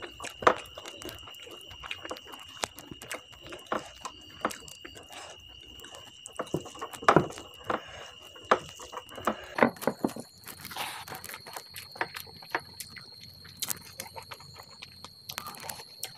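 Wet chewing and lip-smacking while eating rice by hand, with fingers squishing and mixing rice and dal on a steel plate, in short irregular smacks and clicks.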